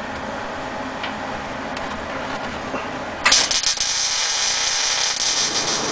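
Arc welder striking up about three seconds in and then crackling and sizzling steadily as it lays a bead on steel.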